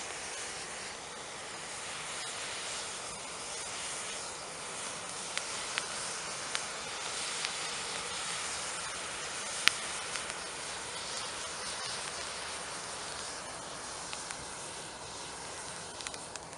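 1 kg white-smoke pyrotechnic charge burning with a steady hiss, broken by a few sharp crackles, the loudest about ten seconds in.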